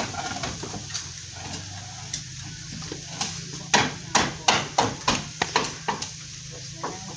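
A run of sharp knocks, about two to three a second, starting about halfway in and stopping shortly before the end, over a steady low hum.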